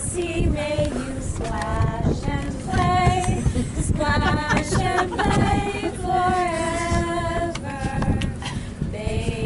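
A small group of voices singing unaccompanied, with notes held for a second or so between shorter phrases, over a steady low rumble.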